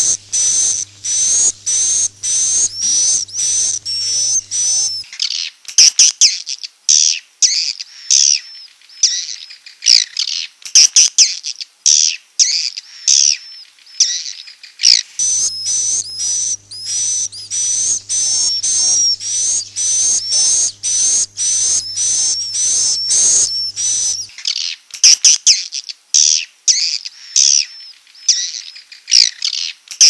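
Swiftlets twittering: a fast, unbroken stream of short, high chirps, several a second, all the way through. It is a swiftlet 'roosting call' (suara inap) recording, played to lure swiftlets into a nest house to roost.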